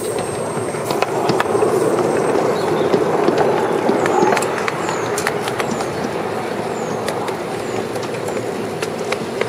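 A 7¼-inch gauge miniature railway train hauled by a live-steam Black 5 locomotive, rolling along the track: a steady rumble of wheels on rails with scattered sharp clicks. It grows louder about a second in and eases off after about four and a half seconds.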